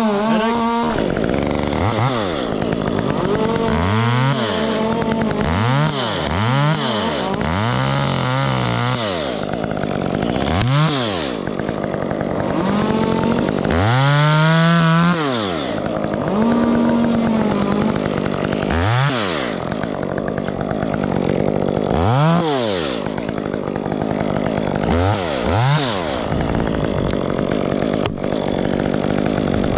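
Two-stroke chainsaw cutting wood, its engine revving up and dropping back about a dozen times, with short full-throttle pulls and one longer one about halfway through, over a steady engine drone.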